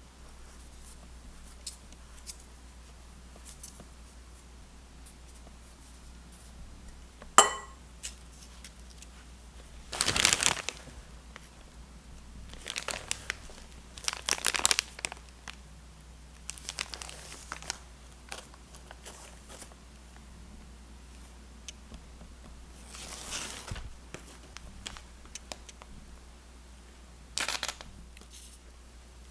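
Intermittent crinkling and rustling during kitchen handling, with one sharp clink about seven seconds in.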